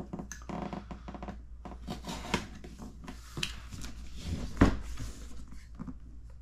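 Hobby knife slitting the tape seals of a cardboard kit box while the box is handled and turned over: scattered scrapes, rustles and clicks, with one louder knock a little over four seconds in.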